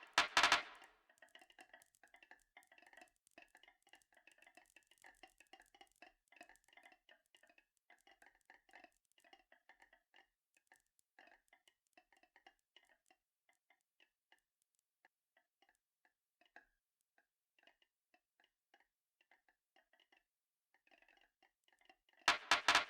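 Marbles clicking and rattling along a marble run track: many small, ringing clicks close together at first, thinning to scattered single clicks over the second half.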